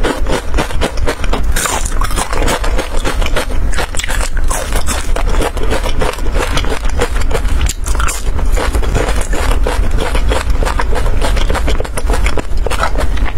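Close-miked crunching and chewing of crispy batter-fried mushroom, a dense, continuous run of crackling crunches over a steady low rumble.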